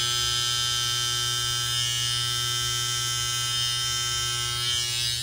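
Electric hair trimmer buzzing steadily while trimming the hair at the side of the head by the ear; a high-pitched, even motor whine.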